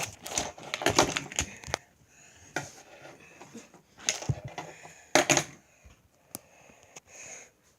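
Fidget spinner clicking and clattering against a hard surface as it is set down and spun on the ground: a quick run of clicks in the first two seconds, then a few scattered knocks.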